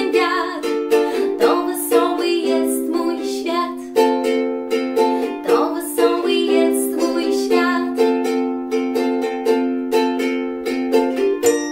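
Soprano ukulele strummed in a brisk rhythm through D minor, B-flat and F chords, with a woman's voice singing along in places.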